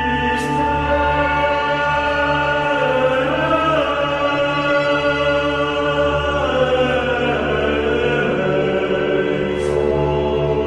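Music with held choir-like chords over a steady low bass.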